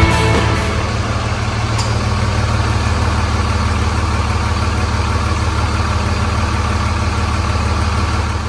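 Pickup truck engine idling steadily, with the tail of rock music fading out in the first second.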